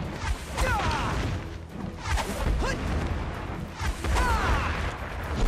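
Kung fu fight sound effects: three or four sweeping swishes of a swung staff and sword, with dull hits, over background music.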